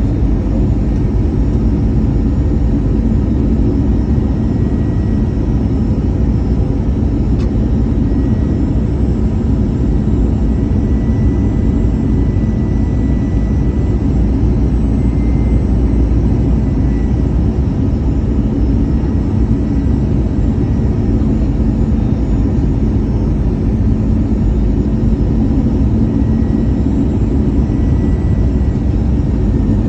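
Airbus A320 on approach: steady jet engine and airflow noise, unchanging in level, with most of its energy low down and a faint high tone through the middle.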